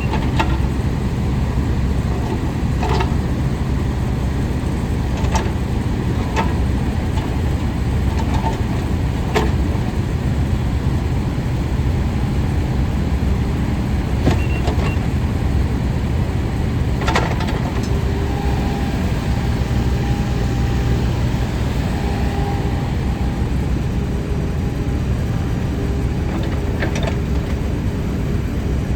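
Kubota KX91-3 mini excavator's diesel engine running steadily, with scattered sharp knocks. A faint steady whine joins in a little over halfway through.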